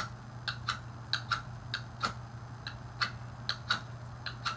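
Ferro rod scraped hard along the spine of a Habilis Bushtool knife, about a dozen short, sharp strokes at irregular spacing, roughly three a second, throwing sparks to light dryer-lint tinder.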